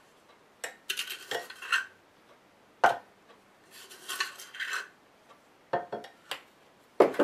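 A ring of plastic measuring spoons clacking together while a spoon scoops sugar from a ceramic canister: scattered sharp clicks and short scraping rasps, with quiet gaps between.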